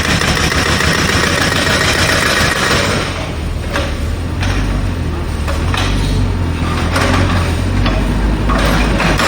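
Jackhammer breaking up the ground, a loud, rapid hammering that slackens about three seconds in and resumes in short spells. A machine engine runs steadily underneath.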